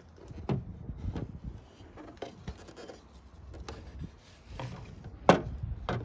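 Hands working on a car's plastic tail-light assembly and bulb sockets: scattered clicks, taps and rubbing, with one sharp click about five seconds in.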